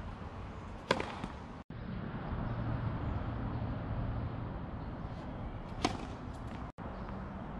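Two tennis serves: the racket strings striking the ball with a sharp pop, about a second in and again near six seconds.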